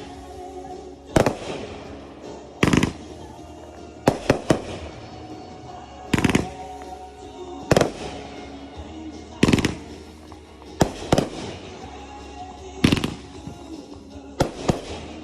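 Fireworks going off, about a dozen sharp bangs spaced a second or two apart, some in quick pairs, with music playing underneath.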